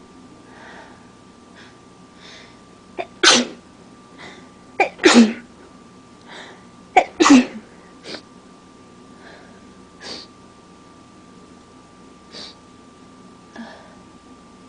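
A person sneezing three times in a row, about two seconds apart, each sneeze preceded by a quick sharp intake of breath; quieter breaths and sniffs follow. The sneezing is from allergies.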